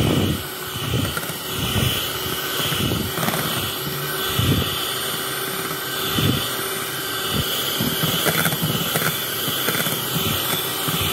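Electric hand mixer running steadily, its twin beaters whipping cream and condensed milk, a steady motor whine with irregular low thuds as the beaters churn the thick cream.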